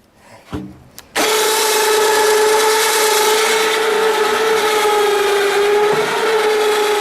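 Electric winch motor starting about a second in and running with a steady whine under load, pulling a small tractor up into a pickup bed. A few light knocks come before it starts.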